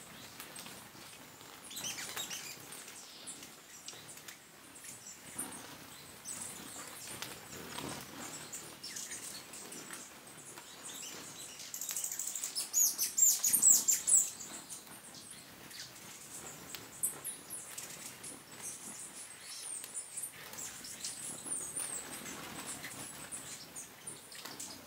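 Hummingbirds at a nectar feeder giving thin, high-pitched squeaky chips, with a dense burst of rapid twittering about halfway through that is the loudest part.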